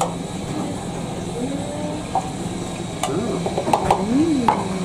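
Restaurant room noise: background voices over a steady hum, with a few sharp metal clinks in the second half as a stainless tabletop barbecue grill is set up.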